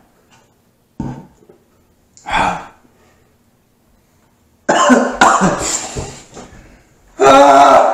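A man coughing and clearing his throat in short fits, a couple of small coughs first and louder, longer coughing bouts in the second half, from the burn of extremely hot chili wings.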